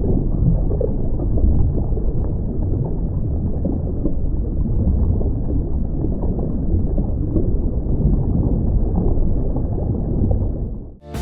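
Steady, muffled low rumble of moving sea water, with no high end to it; it dies away just before the end.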